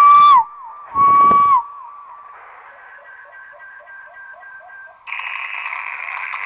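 Amateur radio transceiver's receiver audio. Two short whistling tones come about a second apart, each dropping in pitch as it ends, then faint chirping signals, then steady band hiss from about five seconds in.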